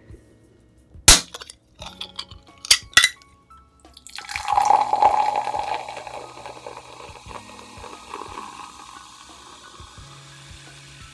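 A few sharp clicks as a drink can is opened, the loudest about a second in, then orange soda poured from the can into a glass mug, splashing loudest at the start and fading as the glass fills.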